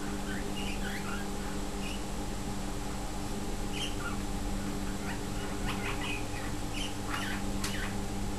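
Lineolated parakeets giving a series of short, high chirps and whistled notes, some gliding up or down, scattered irregularly, over a steady low electrical hum.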